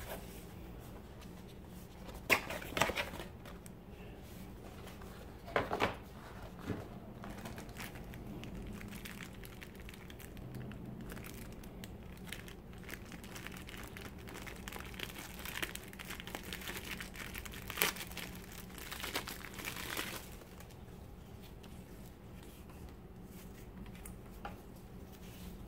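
Plastic packaging crinkling as items are unwrapped from a camera box, with a few sharp knocks of the box and its parts. The loudest knocks come about two and a half and six seconds in.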